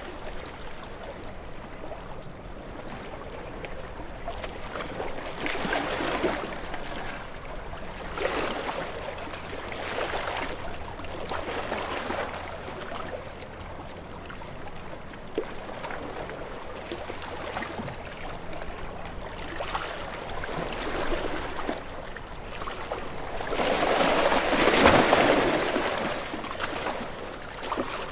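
Small waves washing in and drawing back, each wash a rising and falling hiss every couple of seconds, with one bigger wave about three-quarters of the way through.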